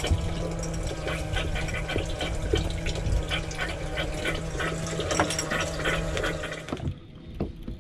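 A boat's livewell pump running, water gushing and splashing into the livewell as it fills over a steady motor hum. It cuts off suddenly about seven seconds in.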